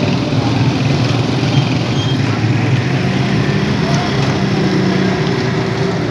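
Motor vehicle engine running steadily with a low hum, over street traffic noise.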